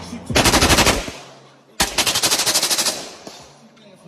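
Two rapid bursts of automatic gunfire, each about a second long with a short gap between them.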